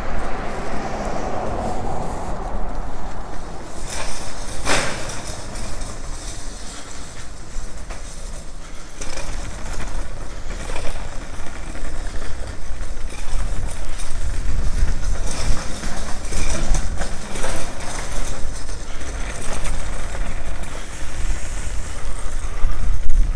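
Street ambience heard while walking: traffic passing on the avenue in the first couple of seconds, then footsteps and a single sharp knock about five seconds in. A low rumble runs underneath and grows louder near the end.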